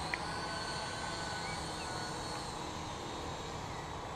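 Syma X8W quadcopter's motors and propellers giving a faint, steady high whine as it flies.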